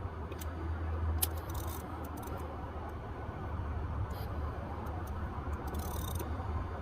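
Scattered light clicks and scrapes from hand tools working on the spark plugs, with a brief hiss about six seconds in, over a steady low rumble.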